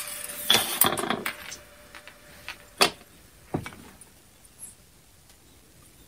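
Handling noise of small disassembled power-tool parts on a metal worktable: a brief clatter in the first second or so, then a few separate light clicks and knocks, the sharpest about three seconds in.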